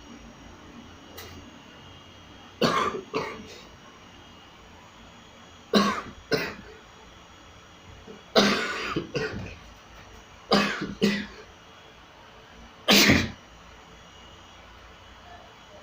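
A person sneezing hard, five bouts about every two to three seconds, several coming as two or three sneezes in quick succession.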